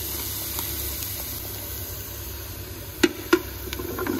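Diced onion and celery mix sizzling steadily in the hot pot of a Ninja Foodi on sear/sauté mode. Two loud, sharp knocks come about three seconds in, followed by a few fainter ones.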